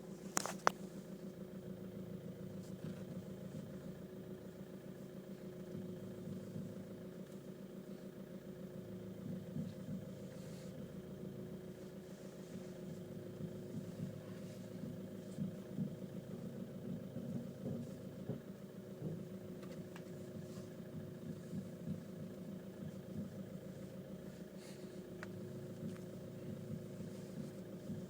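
VW Caddy idling at a standstill, with a few short knocks scattered through, the strongest right at the start. The knocks come from turning the steering wheel on the spot, the fault the owner is trying to trace.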